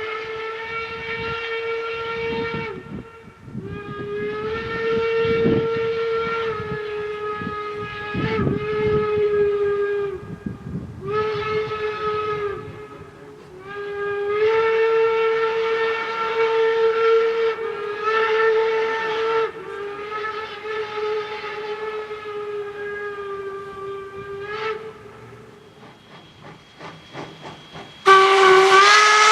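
5-inch Penberthy hooter steam whistle on Jeddo Coal #85 sounding about seven blasts of one steady note, some short and some several seconds long, with low irregular thumps under the first few. Near the end a louder, brighter blast begins.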